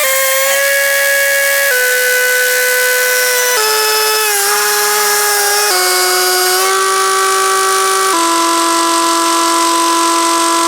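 Stihl TS 420 cut-off saw's two-stroke engine running hard as its 14-inch blade cuts through a steel water-heater tank. A loud, high whine holds steady for a second or two, then jumps to a new pitch, stepping lower overall as the cut goes on.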